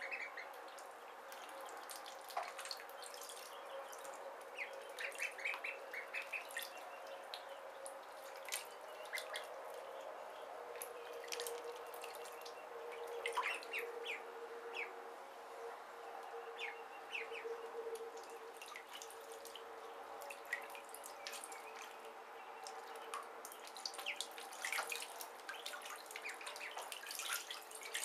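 Khaki Campbell ducklings peeping in scattered clusters of short, high calls as they paddle in shallow bathwater, with small splashes and drips.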